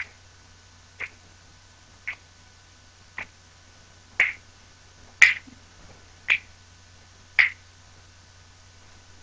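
Finger snaps in a steady rhythm, about one a second, eight in all, the later ones louder.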